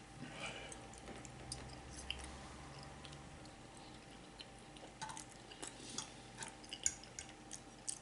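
Faint chewing and mouth sounds of someone eating spaghetti, with scattered small clicks and ticks.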